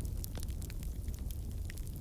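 Wood fire crackling in a fireplace: frequent small, irregular snaps and pops over a steady low rumble.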